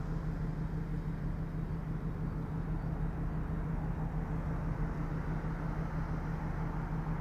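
Steady low drone of a running engine: a constant hum that holds the same pitch throughout, with no rise or fall.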